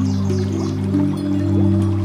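Slow ambient meditation music of long held notes over a low steady drone, changing pitch a couple of times. Faint bird chirps near the start and a soft flowing-water hiss lie underneath.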